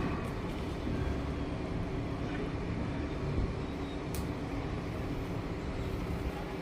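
A steady low mechanical rumble from a running machine or engine, with a sharp click about four seconds in.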